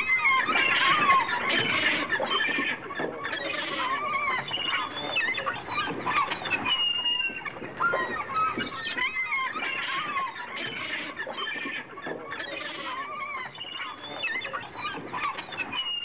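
A flock of gulls calling, with many short squealing calls overlapping into a continuous chorus.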